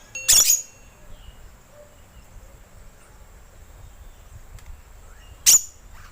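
Green lorikeet giving two sharp screeches, a longer one just after the start and a shorter one near the end, over a faint steady background hiss.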